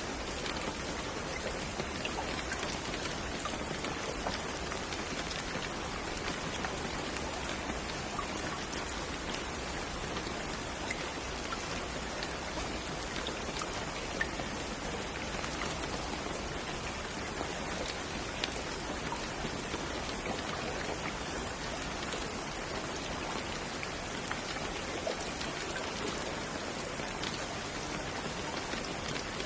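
Steady rain falling on a hard surface, an even hiss with many small drop ticks and now and then a louder single drop.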